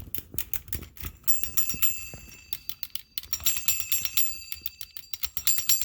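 Antique clockwork Pinocchio wind-up toy: sharp metallic clicking as its spring mechanism is wound, then the toy running, with rapid clicks and clinks under a bell-like metallic ringing.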